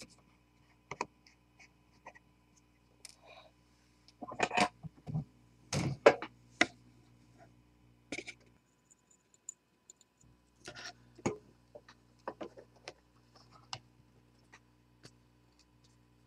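Scattered light clicks and small taps of thin wire, a surface-mount part and a soldering iron tip being handled against a steel bench block, busiest about four to seven seconds in and again near eleven to fourteen seconds.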